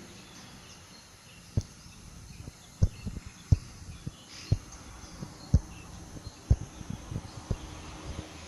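Outdoor ambience with faint birds and insects, broken by short low thuds coming irregularly about once a second.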